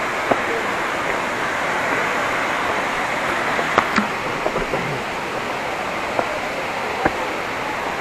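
Steady rush of the Palaruvi waterfall's falling water, with a few short sharp clicks.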